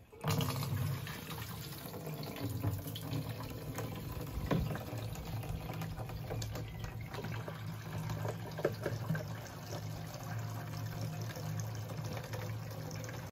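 Water pouring from a water bladder's outlet hose into a 22-litre water can, filling it in a steady stream. The flow starts suddenly just after the start.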